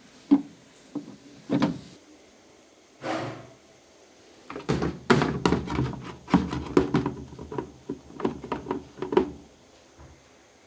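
Repeated knocks and clatter of hard objects being handled: a few separate knocks, a duller thud about three seconds in, then a quick run of many knocks over the next five seconds.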